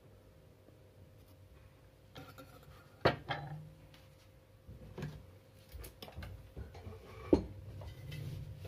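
Scattered sharp clicks and knocks of small hard objects being handled: metal tweezers tapping and setting a small gemstone down on a clay brick. The loudest knocks come about three seconds in and again past seven seconds.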